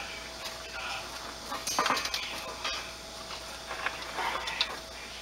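Steel rebar clinking and clattering in a few irregular knocks as the bars are handled and set in place, the loudest about two seconds in.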